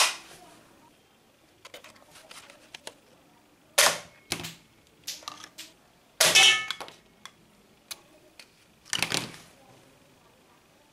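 Toy guns being fired: sharp pops right at the start, about four seconds in, again half a second later, around six seconds and near nine seconds, with lighter clicks between.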